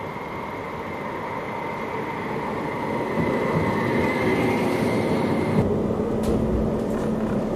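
CAF Urbos 100 light-rail tram pulling into the stop: a rumble of wheels on rail with a thin, steady high whine, growing louder as it draws alongside. About five and a half seconds in, the sound switches to inside the tram, with a low steady hum under the running noise.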